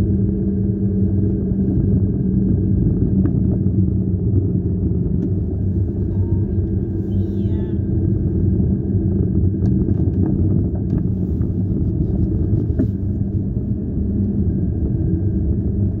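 Car driving on a snow-covered road, heard from inside the cabin: a steady low rumble of engine and tyres.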